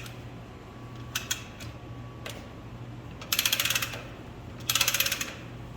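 A ratchet being worked by hand: a few single clicks, then two quick runs of rapid clicking about a second apart in the second half, as the pull moving the locomotive sideways is backed off.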